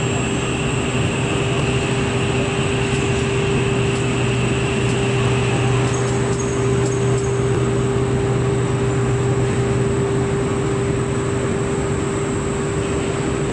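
Steady drone of a thermal bonded wadding line's fibre opening and feeding machines and blowers running, with a constant hum. A thin high whine drops out about six seconds in.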